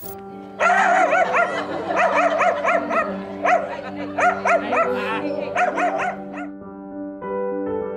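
Small dog barking rapidly in many short, high-pitched barks over soft background music with held notes. The barking stops about six and a half seconds in and the music carries on.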